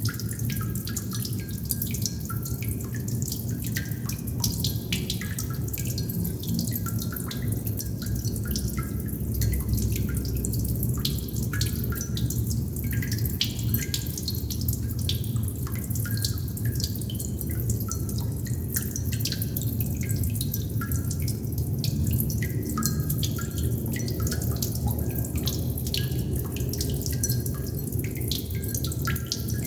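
Water droplets falling irregularly, several a second, each a short high plink, over a steady low rumble.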